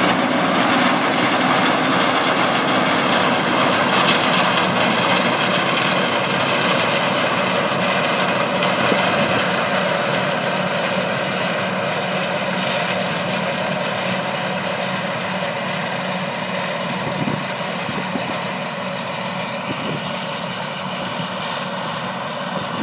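Heavy diesel farm harvesting machinery running steadily, a constant engine hum with a broad rushing noise, slowly growing fainter.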